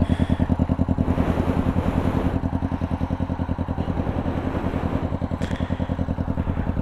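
Motorcycle engine running in first gear, a steady fast pulsing beat as a learner rider moves off.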